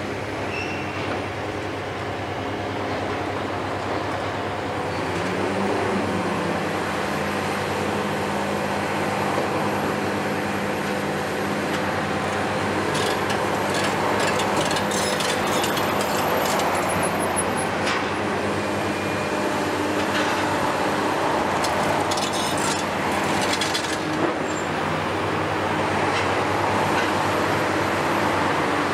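Kiesel KMC 600 demolition excavator's Isuzu six-cylinder diesel running steadily under hydraulic load as the boom moves, its note rising a few seconds in. Spells of clattering crackle come through in the middle.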